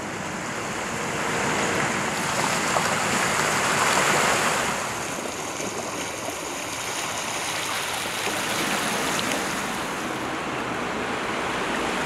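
River water rushing over a riverbed that had been dry for months, a steady rush of flowing water that swells about three to five seconds in.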